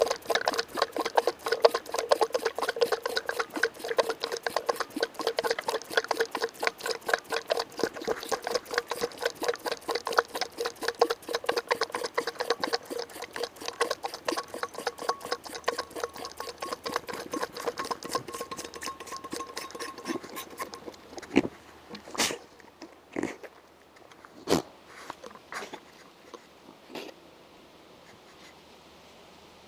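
French Alpine kid goat sucking hard on a bottle's rubber nipple: quick, even sucks, several a second, with a steady squeaky tone along with them. The sucking stops about two-thirds of the way through, followed by a few separate knocks.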